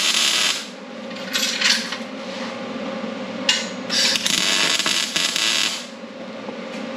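MIG welding arc crackling in bursts while a steel bolt is welded onto a chain link: one weld ends about half a second in, two short tacks follow around a second and a half, then a longer weld of about two seconds from three and a half seconds in. A steady low hum runs underneath.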